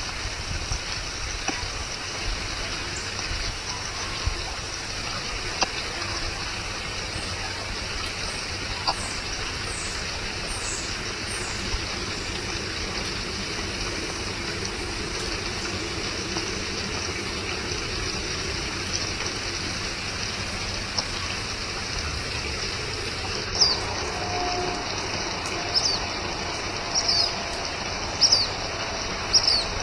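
Steady outdoor background hiss with short high chirps of small birds, a few faint ones early on and a louder run of them starting about three-quarters of the way through.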